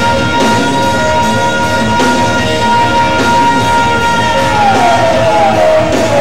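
Rock band playing live in a hall, with one long high note held steady over the band that slides down in pitch about five seconds in.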